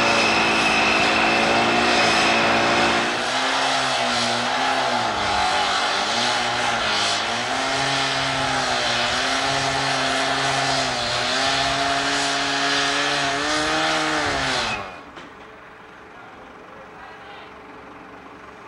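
Petrol-engined cut-off saw cutting through the metal of a bomber's wing, its engine pitch dipping under load and rising again over and over, then stopping suddenly near the end. Before the cutting, about three seconds of steady engine drone.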